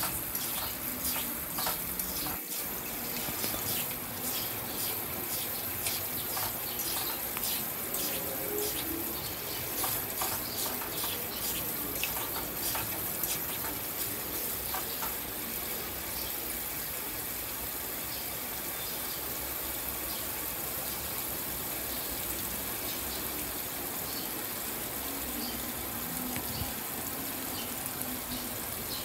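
Spice paste frying in hot oil, sizzling and crackling while a spatula stirs it through the pan. The crackles thin out after about halfway, leaving a steadier sizzle.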